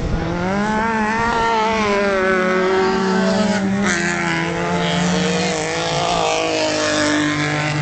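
Engines of race cars on a dirt track running hard under acceleration, their pitch climbing, easing off and jumping again about four seconds in with a gear change.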